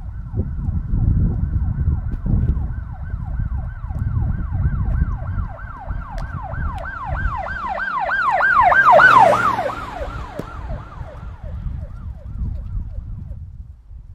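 A siren sounding a fast yelp, about three up-and-down sweeps a second. It grows louder to a peak about nine seconds in and then fades away, over a low rumble.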